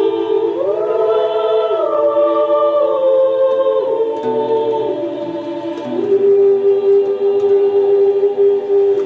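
Recorded music: a choir singing long held chords, the pitch rising about half a second in and stepping lower around four and six seconds in.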